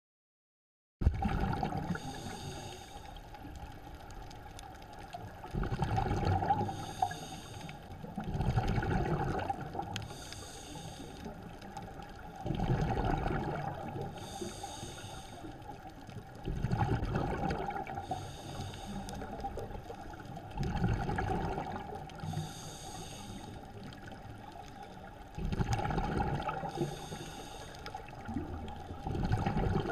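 Scuba diver breathing through a regulator underwater, heard from the camera. Each breath is a hiss of inhaling followed by a louder rush of exhaust bubbles, repeating about every four seconds over a steady faint tone.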